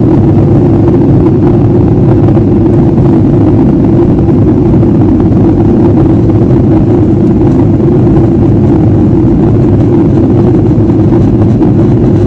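Steady cabin noise inside a jet airliner in flight: the low, even drone of the engines and the air rushing past the fuselage.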